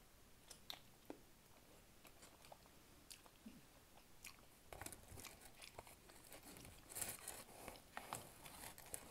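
Faint close-up chewing of a sauced chicken wing: soft wet clicks and smacks of the mouth, with a short stretch of louder crackling about seven seconds in.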